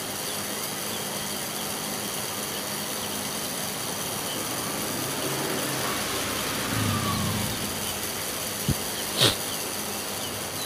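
Steady machine-like background hum with a faint hiss. About nine seconds in come a sharp click and then a short knock, the loudest sounds.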